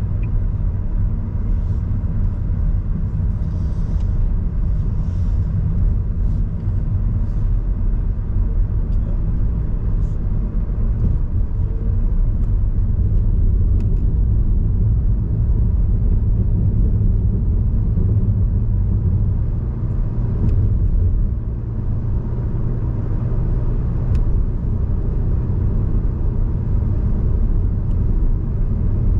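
Car driving steadily at road speed: a continuous low rumble of tyres and engine.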